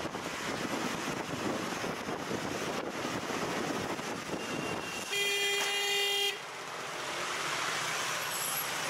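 Road noise from a motor scooter riding in city traffic, with a single steady horn blast about five seconds in that lasts a little over a second and is the loudest sound.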